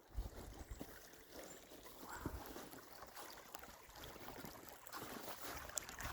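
Faint steady rush of creek water, with scattered small knocks and crunches.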